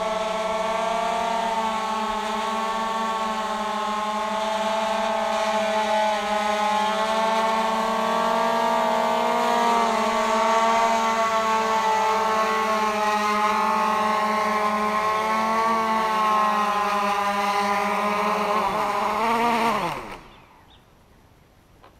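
DJI Phantom 2 Vision Plus quadcopter's four motors and propellers running with a steady, slightly wavering whine, then shut off about nineteen seconds in and spin down in a quickly falling whine.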